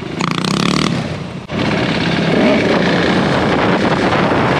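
Motorcycle engine running under throttle, with wind rushing over the microphone. The sound drops out briefly about a second and a half in, then the wind noise comes back louder.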